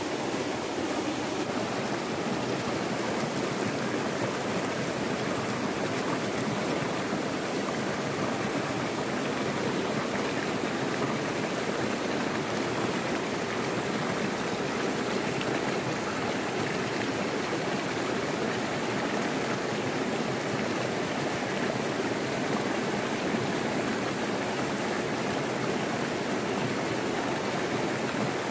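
Small rocky stream pouring over a short cascade: a steady, even rush of water.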